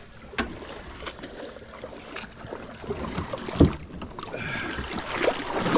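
Knocks and scrapes on a small boat's hull and gunwale, with water stirring around it, as the boat is pushed by hand through shallow water off a sandbar. One louder thump comes about three and a half seconds in.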